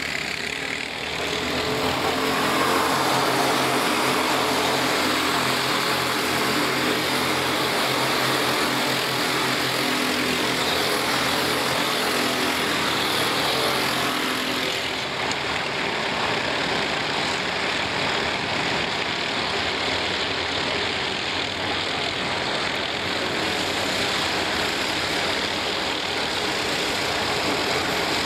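Racing kart engines, several four-stroke karts running hard together as they pass through the corners. Their overlapping engine notes are clear in the first half. After about fifteen seconds the sound turns into a more even, blended drone.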